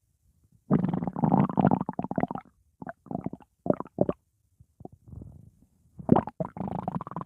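Stomach growling: irregular runs of bubbly gurgles. A long gurgling stretch starts under a second in, followed by scattered short gurgles and pops, a faint low rumble, and another gurgling run near the end.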